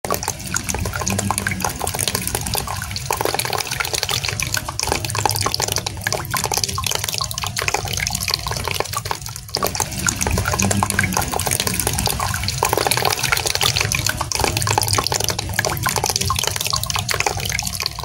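Water trickling and splashing steadily as it falls from a small tabletop cliff-waterfall fountain into its basin.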